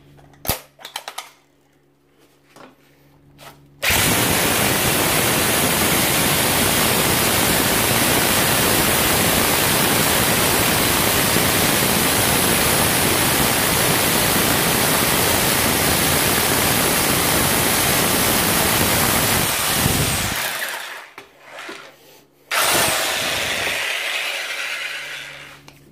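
A few sharp clicks as a larger bit is locked into the SDS chuck. Then a Parkside PBH 1500 F6 SDS-plus hammer drill bores into a concrete wall in hammer-drill mode, running steadily and loudly for about sixteen seconds before winding down. A second, shorter run starts near the end and fades as the drill slows.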